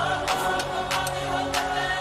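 Background music: held, choir-like chords over a drum beat.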